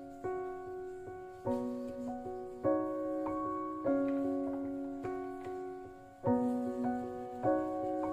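Background piano music: a slow, gentle piano piece with new notes struck about every second and a quarter, each ringing and fading away.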